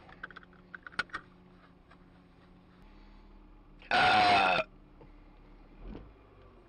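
A loud man's burp lasting under a second, about four seconds in, inside a car's cabin. A few small clicks come near the start, over a low engine hum.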